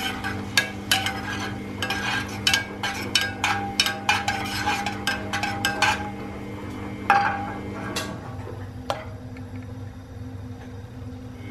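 Metal spoon repeatedly tapping and scraping against the sides of a stainless steel saucepan of water as it is stirred into a whirlpool for poaching an egg; each tap rings briefly, several a second for about six seconds, then a few single taps later on. A steady low hum runs underneath.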